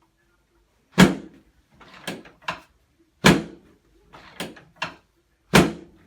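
Chiropractic drop table adjusting the low back: three loud clunks about two seconds apart as the table section drops under the thrust, each followed by a couple of lighter clicks.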